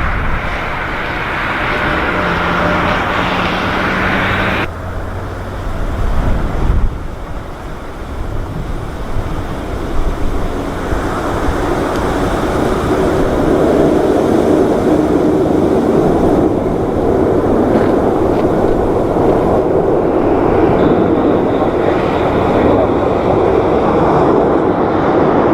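Jet airliner engines running steadily as a large jet approaches or lands, the noise building from the middle onward, with strong wind buffeting the microphone.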